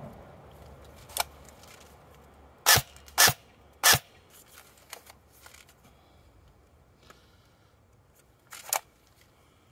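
Double Eagle M904E airsoft electric rifle firing single shots: three short, sharp shots about half a second apart, a faint click earlier, and another shot near the end.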